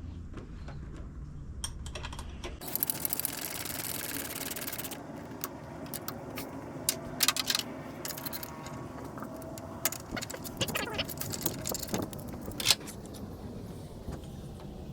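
Steel tools clinking and clicking against a bearing separator and puller being worked onto a supercharger pulley to pull it off the shaft, with about two seconds of steady hiss near the start.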